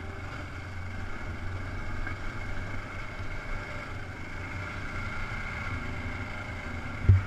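Dual-sport motorcycle engine running steadily while riding a dirt trail, with wind noise on the microphone. A sudden loud knock or rattle comes just before the end.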